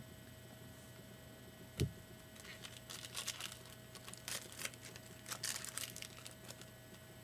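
Trading card pack wrapper being torn open and crinkled, a run of quick rustling crackles, preceded by a single soft thump about two seconds in. A steady electrical hum lies underneath.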